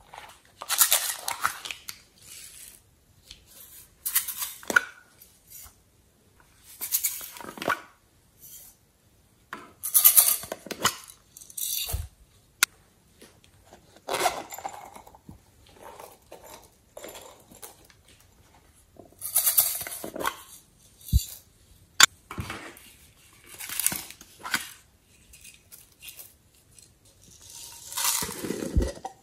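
Hard plastic cases handled in the hands: short bursts of rattling, rubbing and clicking every two to three seconds, with a few sharp single clicks.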